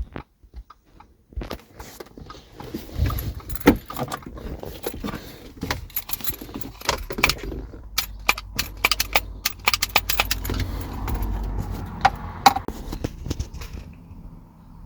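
Irregular clicking and rattling of small hard objects being handled, busiest through the middle, over a low rumble.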